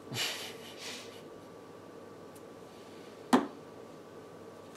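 Playing cards being handled on the playmats of a wooden table: a brief soft rustle at the start, then one sharp tap a little over three seconds in, the loudest sound.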